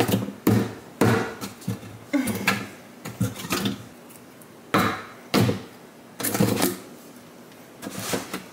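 Cardboard box and rolls of contact paper being handled on a wooden cabinet shelf: a string of short knocks and rustles, about ten, with quiet gaps between.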